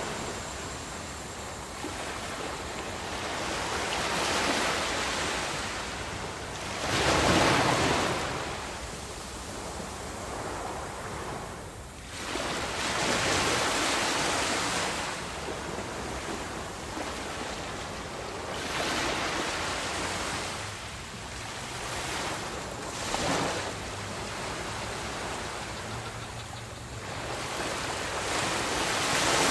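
Ocean surf breaking on a beach: a continuous wash of water with waves swelling and crashing every few seconds, the heaviest about seven seconds in and another building near the end.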